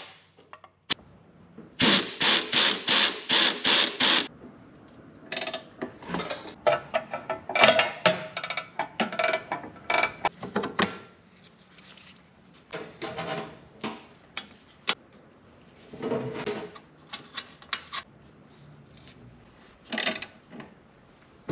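Hand socket ratchet clicking in runs as the bolts and nut of a new front ball joint are run down, with scattered clinks of metal tools. The loudest run of clicks comes about two seconds in.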